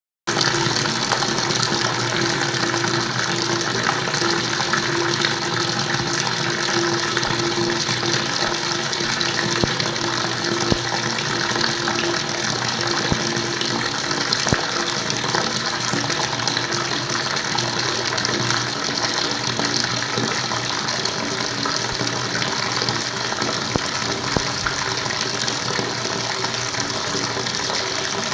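Water flowing steadily, an unbroken rushing gush with no pauses.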